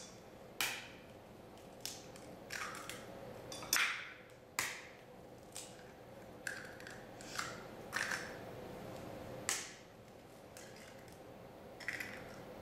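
Three eggs being cracked into a white ceramic mixing bowl of brownie batter: a string of sharp taps and shell cracks against the bowl's rim, about one a second.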